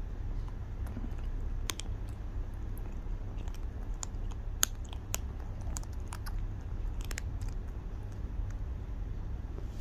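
Kitten chewing a piece of dry cat kibble: scattered sharp crunches a second or so apart, the loudest about four and a half seconds in.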